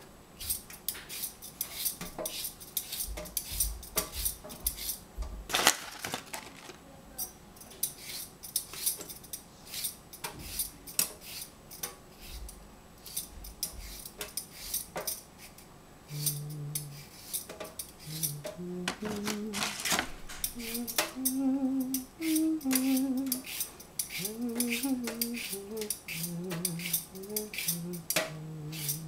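Cucumbers being peeled: the blade scrapes along the skin in quick, repeated strokes. From about halfway, someone hums a tune over the scraping.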